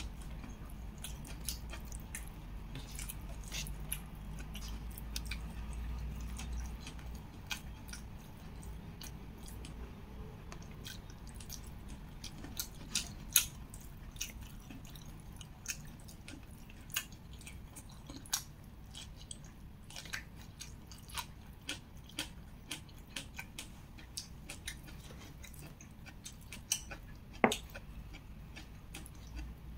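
Close-miked eating sounds: chewing and wet mouth smacks, a steady run of short clicks, with a few louder ones about 13 seconds in and again near the end.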